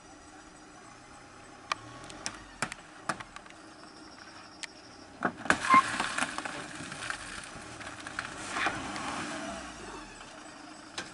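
Metal body of a passenger van being knocked and shoved by a wild elephant: a few sharp knocks at first, then from about five seconds in a cluster of loud bangs and a rough, rattling scrape as the elephant pushes the van and tips it up on one side.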